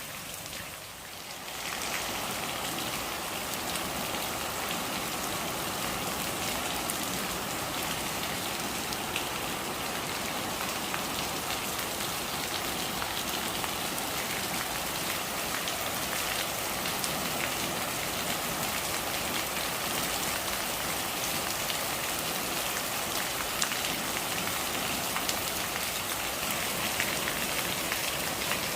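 Steady rain falling on a surface, with scattered individual drops ticking. It is briefly quieter at the start, then rises to a steady level about a second and a half in.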